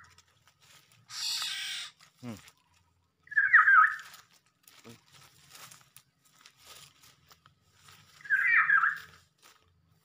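Two loud calls of a black-naped oriole (kepodang), each under a second and about five seconds apart. A short rustling hiss comes about a second in.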